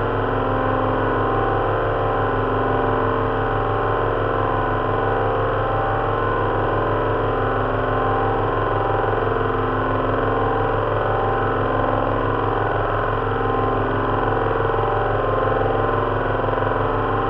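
Simulated drone of an Avro Lancaster's four Merlin V12 engines running steadily at constant power. It is a mix of four recordings of a speaker-driven engine firing-order rig, each at a slightly different RPM, with a fan heater's rush standing in for propeller noise.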